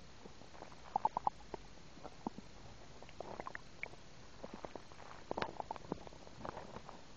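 A girl's stomach gurgling and rumbling: irregular short gurgling pops that come in clusters, about a second in, around three seconds and again past five seconds.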